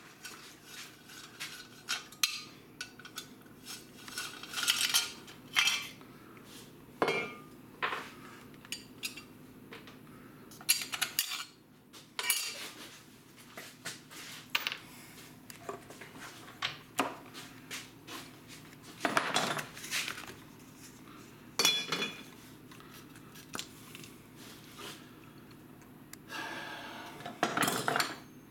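Metal hand tools and small parts clinking and clattering on a wooden workbench: irregular knocks and clinks as they are picked up and set down, with a few longer rattling stretches, one near the end.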